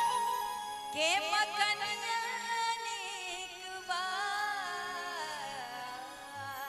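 Bhojpuri stage-show singing: a long, wavering melodic line that sweeps up about a second in and then glides slowly.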